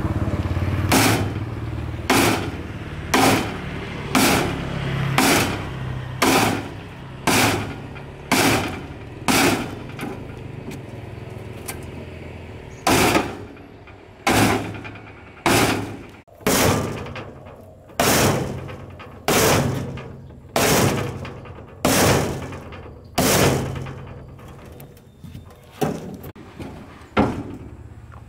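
Repeated blows of a long metal bar on the rusty steel load bed of a 1999 Daewoo mini truck, about one sharp metallic strike a second, each dying away quickly, with a pause of about two seconds near the middle.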